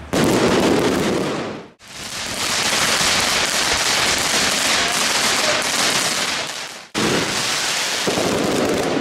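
Fireworks going off in a dense, continuous crackle, broken off abruptly and restarting about two seconds in and again about seven seconds in.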